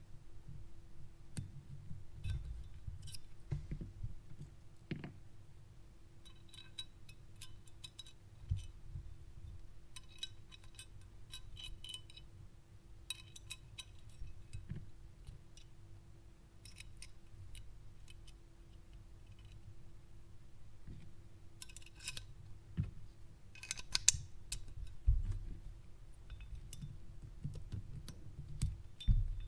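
Small metal clicks and clinks of Glock 34 pistol parts being handled and fitted by hand, the slide and small internal parts, coming in scattered clusters with dull handling bumps between, and a faint steady hum underneath.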